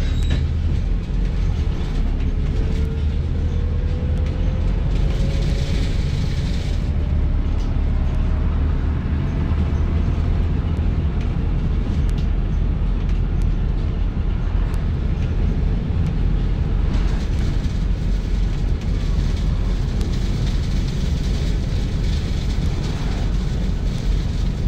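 Inside a Volvo B5TL / Wright Gemini 3 double-decker bus on the move: a steady low rumble from the engine and road, with a faint whine rising slowly in pitch over several seconds as the bus gathers speed, and light interior rattles.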